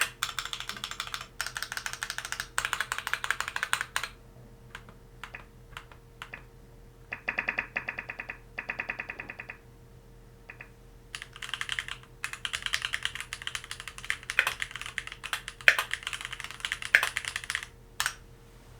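Keychron Q2 mechanical keyboard with Gateron G Pro Brown tactile switches being typed on rapidly, in bursts of key clacks. Midway there is a lull with only a few scattered keystrokes, and a single keystroke comes near the end.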